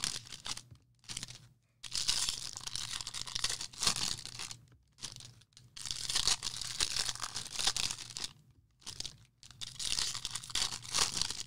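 Foil trading-card pack wrappers being torn open and crinkled, in several crackly bursts with short pauses between them.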